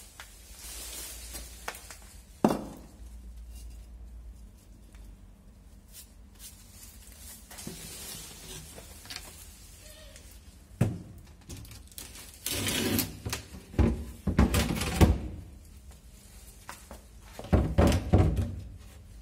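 Wooden board being lowered onto stacked wooden blocks on concrete stair steps and pressed down to test it: a series of knocks and thuds of wood on wood with some scraping between, the loudest near the end.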